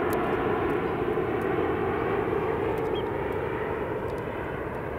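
Boeing 787 airliner on landing approach, gear down, its jet engines heard as a steady drone that slowly gets quieter.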